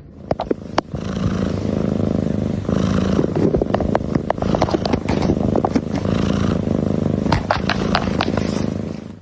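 A cat purring close to the microphone, a steady low rumble with scattered small clicks over it.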